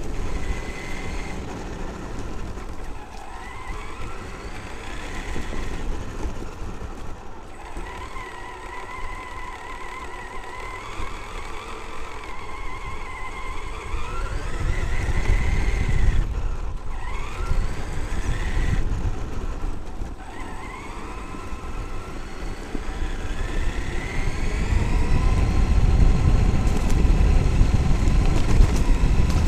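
Traxxas X-Maxx electric RC monster truck driving fast. Its brushless motor whines, rising and falling in pitch with the throttle, over a low rumble of wind and tyres on the truck's onboard camera microphone. The rumble grows heavier near the end.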